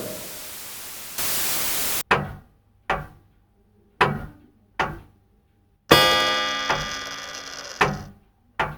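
Static hiss that cuts off suddenly about two seconds in, then a short chime melody of struck, ringing notes: four single notes about a second apart, a long ringing chord, then two more notes, leading into a broadcast alert.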